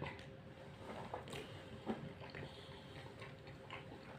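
Faint sounds of eating by hand: chewing, and fingers working biryani rice in a plastic takeaway tray, with a few small clicks. A faint steady hum lies underneath.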